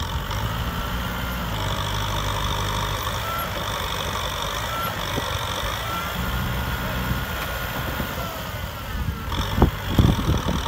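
Kubota M6040SU tractor's diesel engine running steadily under load, with a slightly wavering whine, while the tractor is stuck in deep mud. A few sharp knocks about nine to ten seconds in.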